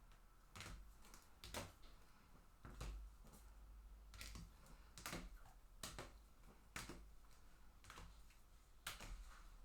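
Faint, irregular taps and clicks of trading cards and card holders being handled, shuffled and set down on a table while sorted, about one every half second to second over a low hum.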